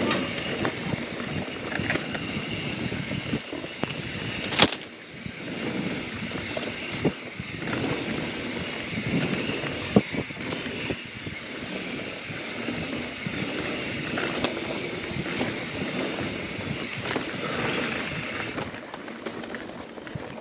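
YT Jeffsy mountain bike riding fast down a dirt trail: a steady rush of tyre and wind noise with rattling, and two sharp knocks about five and ten seconds in. The high hiss falls away near the end.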